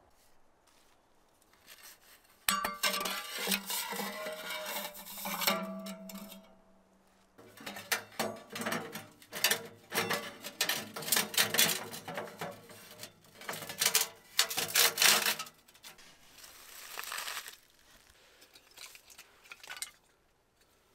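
Steel stovepipe sections scraping and clanking against each other as they are slid together and fitted, with a ringing metal tone under the scraping. Softer rustling near the end.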